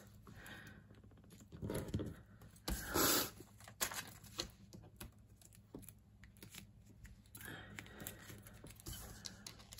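Foam adhesive dimensionals being torn from their sheet and peeled off their paper backing: a few short tearing and rustling sounds among scattered light clicks and taps.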